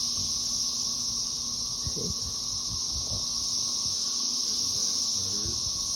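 Chorus of insects keeping up a steady, continuous high-pitched buzz. It is loud enough to catch the attention of people walking outdoors.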